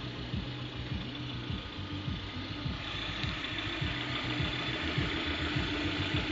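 Lada Priora's 21126 1.6-litre 16-valve engine idling warm, with a faint knock that comes and goes. A steady hiss grows louder about three seconds in. The knock, after a rebuild with a bored block and new pistons and rings, is suspected by the owner to come from the camshafts.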